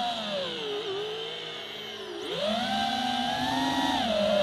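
Brushless motors and propellers of a 6S 5-inch FPV quadcopter whining, the pitch following the throttle: it drops over the first two seconds as the throttle is eased off, climbs sharply just after that and holds, then sinks a little near the end.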